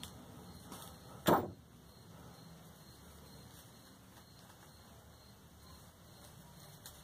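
A single sharp click about a second in, over faint steady background noise.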